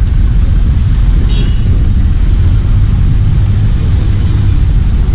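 Road traffic passing close by: cars and a small box truck driving past, a steady loud low rumble of engines and tyres.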